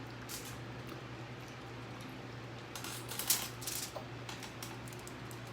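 Crisp fried chicken being bitten and chewed, giving scattered crunches and clicks, most of them about three seconds in, over a steady low hum.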